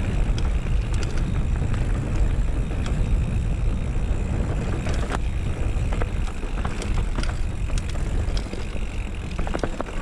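Mountain bike riding fast down a dirt singletrack: tyres rumbling steadily over the ground with wind rushing over the microphone. Short clicks and rattles from the bike over bumps are scattered throughout, with a quick cluster near the end.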